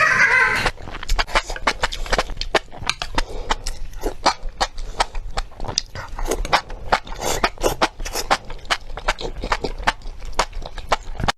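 Close-miked chewing of spicy enoki mushrooms: a long, irregular run of sharp wet mouth clicks. It begins just after a brief, loud pitched sound in the first second.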